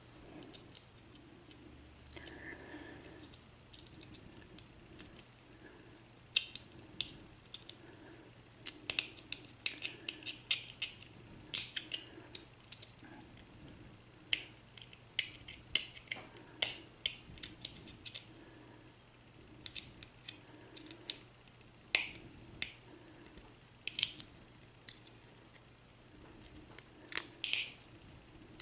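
Small metal clicks and scrapes, irregular and sharp, from a tool prying at the clip on the back of an American Series A1100 padlock to remove it.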